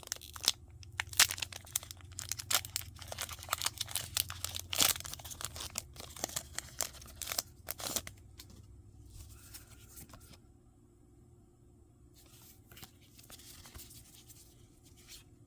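Foil wrapper of a Pokémon TCG Black Bolt booster pack being torn open and crinkled: a dense run of sharp crackles for about eight seconds, then only faint rustling.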